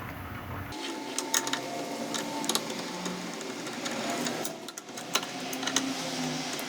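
A tool whirring and clicking as it backs out the Torx T40 bolts holding the starter clutch to a Honda XRE 300's rotor. The bolts are loose.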